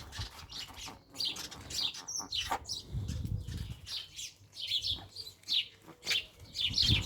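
A flock of small birds chirping noisily, many short high chirps overlapping one another without a break.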